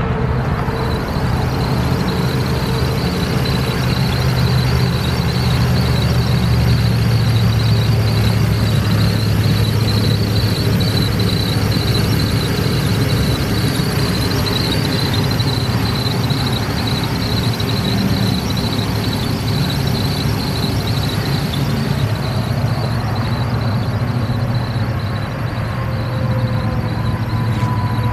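2014 Nissan Frontier's 4.0-litre V6 gas engine idling steadily, with a thin, high-pitched whine held over the low hum.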